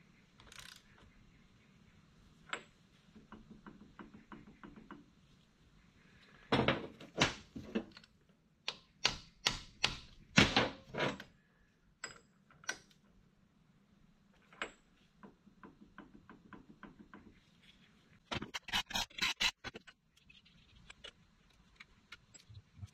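Hand ratchet clicking in short runs as it works the pinion nut on a rear differential, with bursts of louder, sharper clacks about a third of the way in and again near the end.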